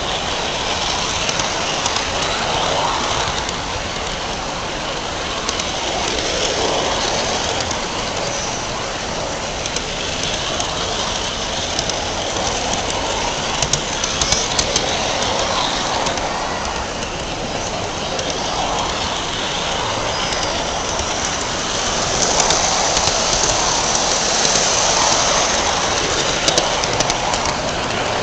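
Garden-scale model train running along its track, heard from a camera riding on it: a steady rattling hiss of wheels and drive on the rails, with scattered sharp ticks. It grows louder for a few seconds near the end.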